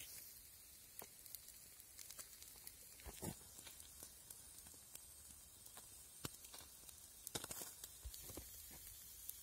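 Faint sizzling of grass carp pieces grilling in a wire basket over wood embers: a steady soft hiss with scattered crackles and pops from the coals.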